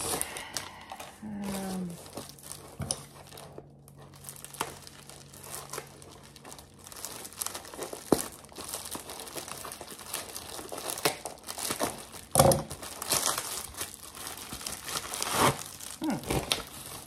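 Bubble wrap and plastic packaging crinkling and tearing as a parcel is cut open with scissors and unwrapped, in irregular crackly bursts. A louder knock comes about twelve seconds in.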